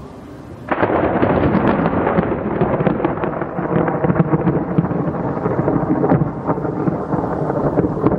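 Thunder from a strong thunderstorm: a loud, crackling rumble that starts suddenly under a second in and rolls on steadily.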